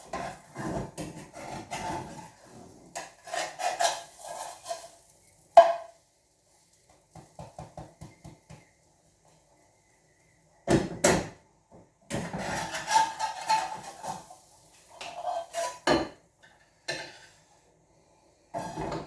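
A spatula and frying pan clattering and scraping in irregular bursts, with one sharp knock about five and a half seconds in, as a pancake is worked in the pan.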